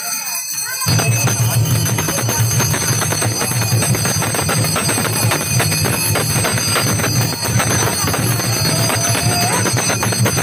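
Brass hand bell of a Tatung spirit medium shaken rapidly and continuously, starting about a second in, over a loud low din.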